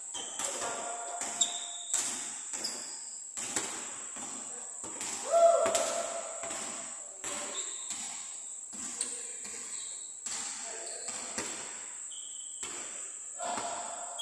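Basketballs bouncing on a court floor: irregular thuds of dribbling and shots, with one louder squeal a little over five seconds in and a steady high whine underneath.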